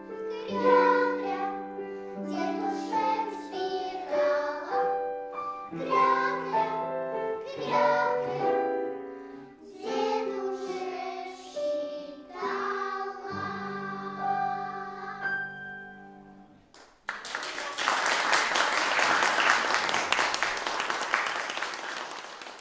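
Young children's choir singing with piano, ending on a long held final chord about sixteen seconds in. About a second later the audience breaks into applause.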